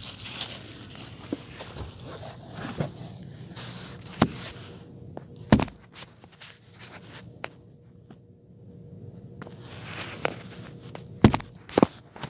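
Handling noises from hands at work: scattered sharp knocks and clicks over a low rustle, with the loudest knocks around the middle and twice near the end.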